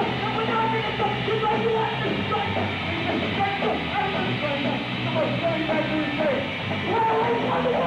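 Hardcore punk band playing live: loud, continuous distorted electric guitar and drums.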